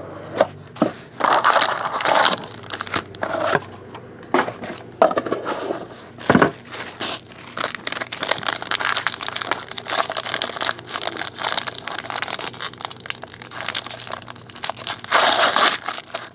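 Cardboard trading-card box being handled and opened, with foil pack wrapping crinkling and tearing in irregular rustles and clicks as the cards are unwrapped.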